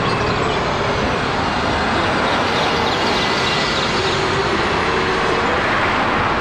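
Double-decker city bus driving past on a street, a steady rush of engine and tyre noise with general traffic.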